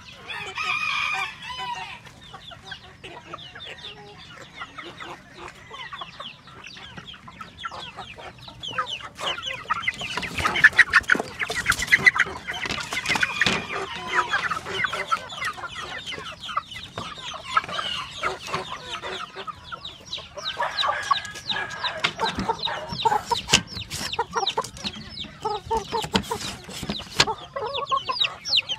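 Filipino native chickens clucking and calling on and off, with one longer, louder call about a second in. Frequent clicks and knocks run among the calls.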